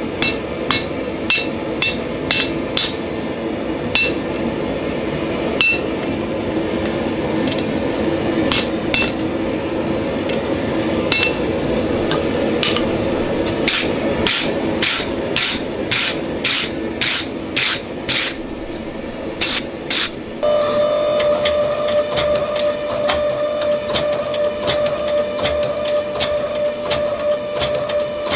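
Hammer blows ringing on a red-hot damascus steel billet on an anvil, first in a fast irregular run, then slower, even blows about two a second. About two-thirds of the way through the hammering stops and the steady hum of a hydraulic forging press motor takes over.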